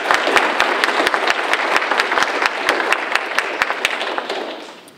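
Audience applauding, many hands clapping together, dying away in the last second.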